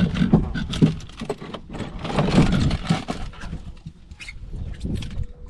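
Irregular knocks, taps and rattles from handling on a fishing boat, busiest in the first three seconds and then thinning out.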